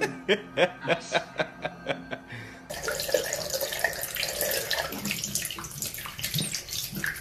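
A quick run of sharp taps, about four a second, for the first two and a half seconds. Then a tap running steadily, its water pouring over a wet baby marmoset held in a towel.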